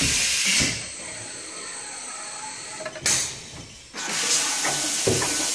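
ETI3000 print-and-apply label applicator working its pneumatic arm: air hissing, which drops away under a second in. There is a sharp burst of air about three seconds in, and hissing again from about four seconds until it cuts off suddenly at the end.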